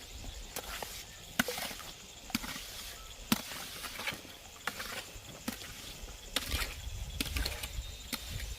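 A series of irregular sharp knocks from hand-tool work, coming every half second to a second. The loudest strikes fall about one and a half and three and a half seconds in.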